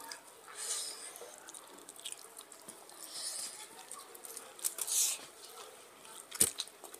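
Wet squishing and slapping of bare hands mixing rice with oily curry, in short bursts about a second apart, with some chewing. One sharp click stands out near the end.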